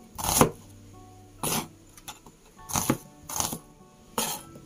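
Kitchen knife cutting shallots on a plastic cutting board: about five separate chopping strokes, unevenly spaced, each a short sharp knock of the blade on the board.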